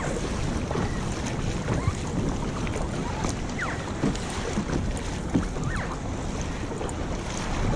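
Seawater lapping and splashing around a kayak, with small splashes and drips scattered through, under steady wind noise on the microphone.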